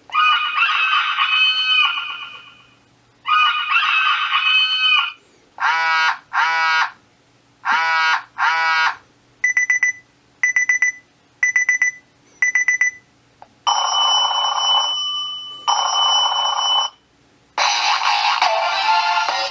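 Seiko RAIDEN digital alarm clock playing a run of its different electronic alarm sounds, each lasting a second or a few seconds with short gaps between: warbling chirps, then groups of quick beeps, then a steady buzzing tone.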